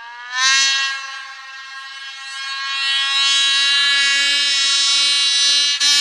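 Polaris 800 Assault snowmobile's two-stroke twin, stock apart from a GGB mountain can silencer, running at high revs. Its pitch climbs in the first half second, then holds steady, with a brief break and surge near the end.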